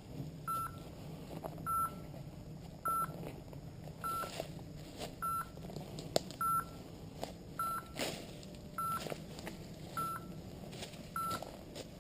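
A dog's beeper collar sounding short, identical beeps about every 1.2 seconds, the steady beeping of point mode that signals the bird dog has stopped and is holding point. Faint clicks and rustles of brush run underneath.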